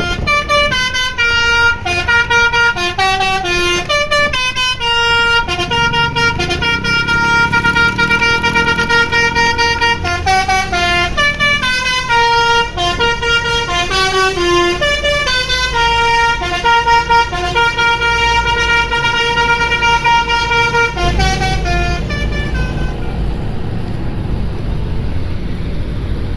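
Bus telolet musical horn (Basuri v3) playing a long melody of quickly changing notes, stopping about 22 seconds in. The bus's engine rumbles underneath and runs on after the horn stops.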